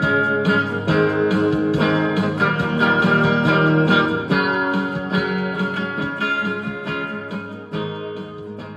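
Strummed acoustic guitar chords ringing out, getting gradually quieter over the last few seconds as the song winds down.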